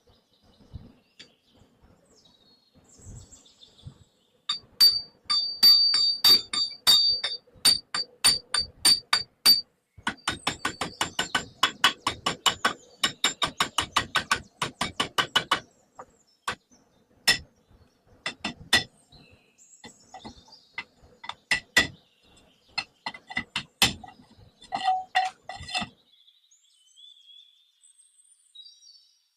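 Hammer striking metal: a run of ringing blows about three a second, then a rapid run of lighter taps, then scattered single strikes.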